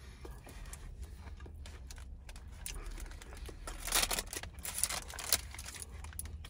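McDonald's paper burger wrapper crinkling as it is handled, loudest in a flurry about four to five and a half seconds in, over a low steady hum.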